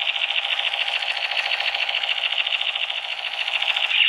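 Battery-powered 3301 model toy gun's built-in electronic firing sound, playing as a steady, fast rattle from its small speaker.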